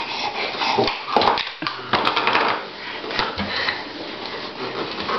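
Babies moving about on a wooden floor and handling small things: scattered light knocks and scuffs over a noisy background.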